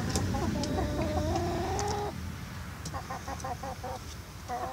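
Barred Rock and Australorp hens calling close by: one drawn-out, slightly rising call for about two seconds, then short bursts of quick clucks about three seconds in and again near the end.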